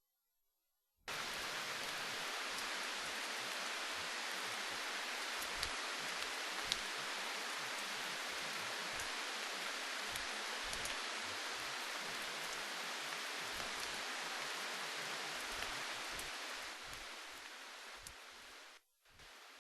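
A steady, even hiss like rain starts suddenly about a second in, with a few faint ticks. It fades near the end and cuts off.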